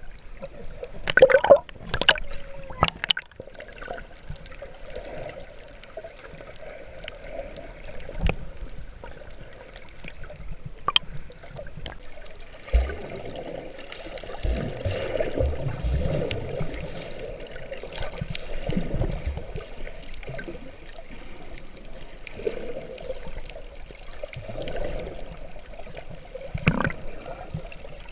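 Muffled water sloshing and gurgling heard underwater by a snorkeler's camera. There are a few sharp clicks near the start and low thumps around the middle.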